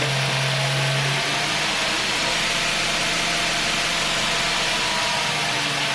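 B.A. Shredder 2x72 belt grinder running steadily on its motor, driven from a variable frequency drive: an even hum with a low tone and a steady hiss of the spinning belt, running smoothly.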